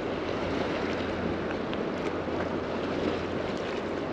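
Small waves lapping in shallow seawater, with wind on the microphone: a steady wash with a few faint small splashes.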